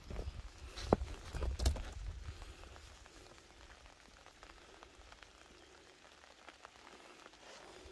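Light rain falling on garden plants, heard as scattered drop ticks over a soft patter. In the first two seconds a few louder knocks and a low rumble stand out, the sharpest about a second in.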